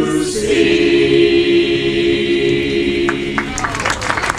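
Sea shanty choir of mixed men's and women's voices, unaccompanied, holding the long final note of the song. It ends about three and a half seconds in and applause breaks out.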